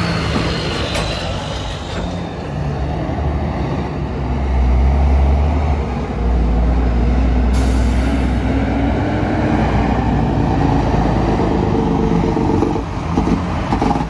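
Heavy diesel truck engine running under load, a steady low rumble that grows louder about four seconds in, its pitch wavering and rising with the throttle. A short high hiss of air sets in about halfway through.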